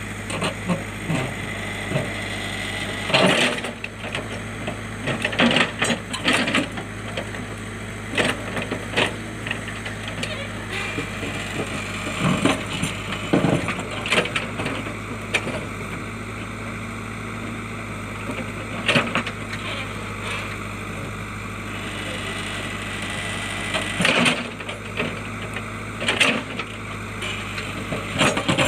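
JCB backhoe loader's diesel engine running steadily, with irregular knocks and clatters from the digging bucket striking and scraping stones and rocks.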